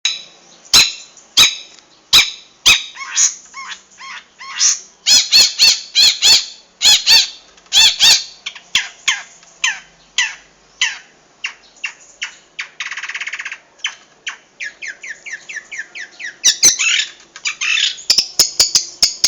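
Long-tailed shrike singing a loud, varied series of sharp, piercing call notes that mimic lovebird, canary and bar-winged prinia songs. A buzzy trill comes about thirteen seconds in, and a fast run of notes near the end.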